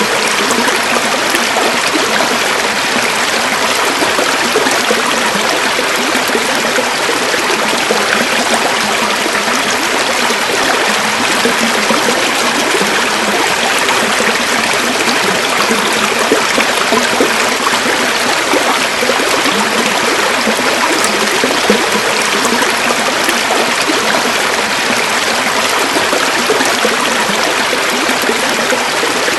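A river flowing: a steady, even rush of moving water with a fine bubbling texture.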